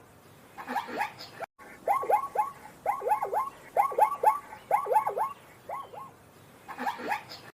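Short high animal calls that dip and rise in pitch, repeated in quick runs of three or four about once a second.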